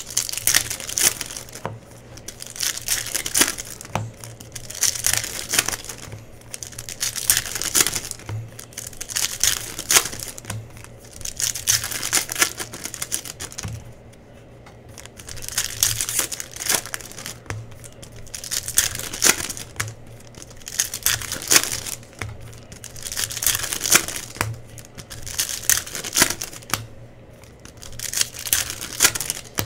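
Foil trading-card pack wrappers being torn open and crinkled by hand, one after another, in bursts of crinkling about every two seconds.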